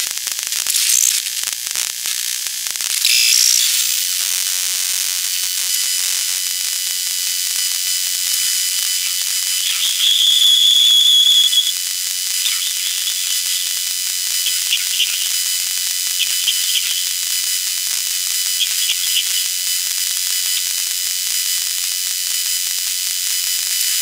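An AR1 VLF receiver's speaker is turning a cell phone's radio emissions into sound as the phone calls a landline. It is a steady hiss with thin high whistle tones, a louder high burst about ten seconds in, and several shorter bursts after it.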